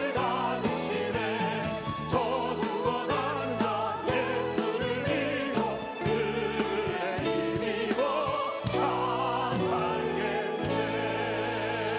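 Church choir singing with instrumental accompaniment: the voices carry a wide vibrato over sustained chords that shift every second or two.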